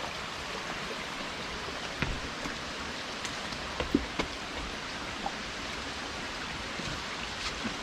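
Steady rushing outdoor noise, with a few scattered light clicks and taps.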